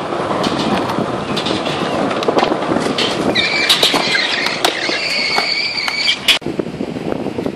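Skateboard wheels rolling over smooth concrete, a steady rumble with scattered clacks of the board. About three seconds in, a high steady squeal joins and holds for about three seconds, then the sound drops off suddenly.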